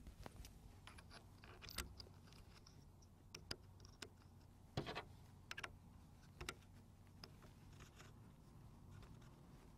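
Faint, irregular small clicks and light scrapes of small metal parts being handled: the pistol grip bolt being fitted into an AR-15's grip. A few clicks stand out about 2, 5 and 6.5 seconds in.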